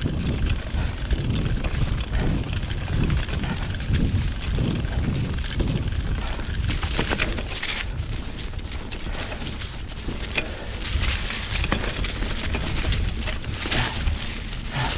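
Specialized Pitch mountain bike descending a leaf-covered dirt trail: tyres rolling and crunching through dry leaves, with the bike rattling and knocking over bumps. Wind rumbles on the microphone throughout. The crunching swells about halfway through and again near the end.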